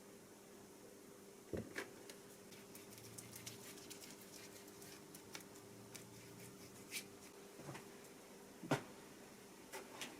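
Faint, scattered clicks and light taps over a steady low hum, the loudest tap about three-quarters of the way through.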